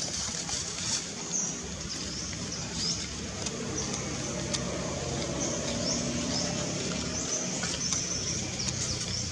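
Outdoor background with a low motor hum that comes in a few seconds in and holds steady. Short high chirps sound every second or so throughout.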